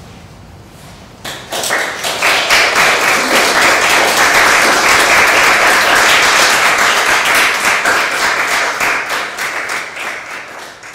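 Audience applauding: clapping breaks out about a second in, swells to a dense, steady round, then thins out near the end.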